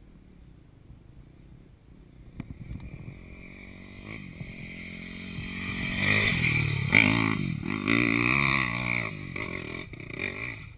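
Off-road motorcycle engine coming closer and passing, its pitch rising and falling with the throttle; it builds from a few seconds in, is loudest around seven seconds in, then fades.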